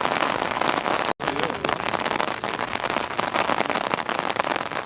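Rain falling, with many close drop hits as fine irregular ticks. The sound cuts out for an instant about a second in.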